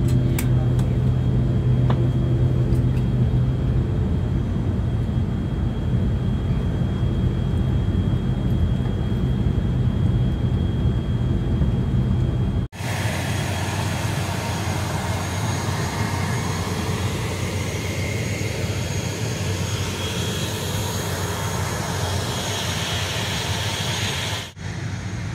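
ATR 72-600 turboprop engine heard from inside the cabin, running on the ground after landing: a steady drone with a strong low hum. About halfway through it cuts off abruptly to a steady open-air hiss without the low drone, which cuts again near the end.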